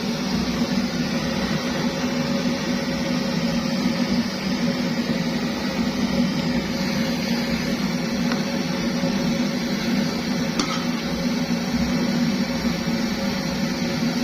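Kerosene pressure stove (primus) burner running, a steady low rushing noise with no break.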